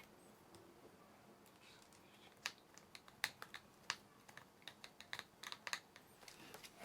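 Faint, irregular light clicks and ticks of a small screwdriver and fingers working a battery screw inside an open laptop case, starting about two seconds in.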